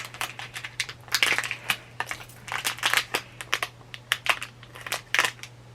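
Blind-box packaging being opened and handled by hand: irregular crinkling and small clicks of the wrapping, stopping shortly before the end.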